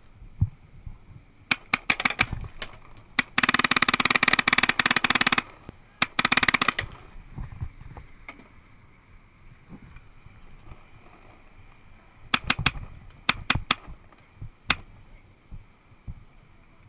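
Paintball markers firing: a few single shots, then a rapid burst lasting about two seconds and a shorter burst right after it, then a quick cluster of shots and one last single shot near the end.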